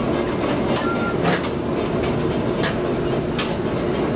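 Argo Wilis passenger coaches rolling past close alongside on the next track: a steady rumble of wheels on rail, with sharp, irregular clacks as the wheels cross rail joints.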